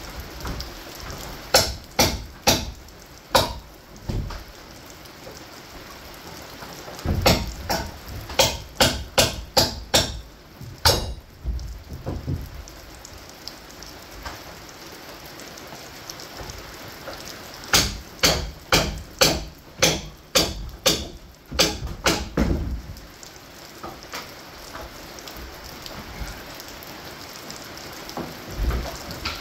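Hammer driving nails into the wooden framing: three runs of sharp strikes, about two a second, with pauses between runs and a steady low hiss throughout.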